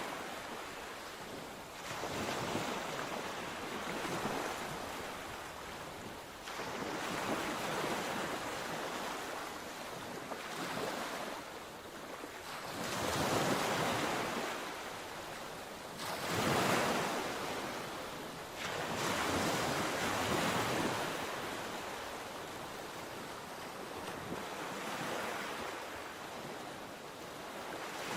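Sea waves breaking on the shore, the surf swelling and falling away in surges every few seconds.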